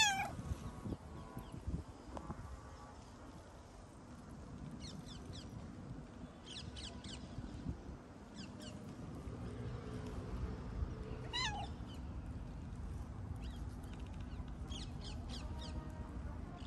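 Tabby street cat meowing loudly at the start, a single call falling in pitch, and meowing once more about eleven seconds in.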